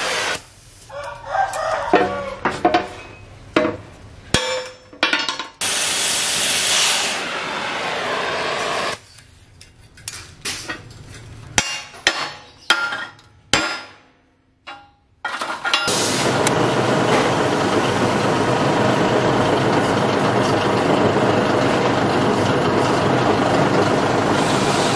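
Hammer blows on thick steel plate, sharp irregular knocks, as a flame-cut piece is knocked free. From about 16 s a metal lathe runs steadily, turning a steel part.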